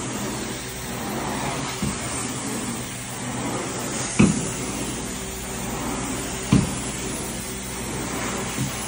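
Carpet-cleaning extraction machine's vacuum running steadily through its hose, with a low hum under the noise. A few short knocks cut in, the loudest about four and six and a half seconds in.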